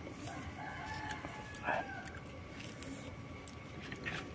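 A rooster crowing in the background: one drawn-out crow over the first two seconds, with a few light clicks and knocks.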